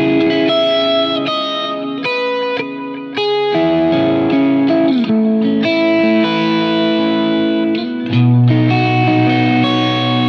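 Electric guitar played through a Line 6 Helix running a PROXY clone of a 1966 Vox AC30, set at the edge of breakup, slightly saturated, with delay on. Chords and ringing notes change every second or so, and lower, fuller chords come in about eight seconds in.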